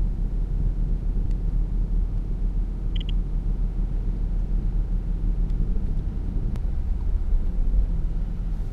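Steady low road and tyre rumble heard inside the cabin of a Tesla electric car moving slowly in heavy traffic.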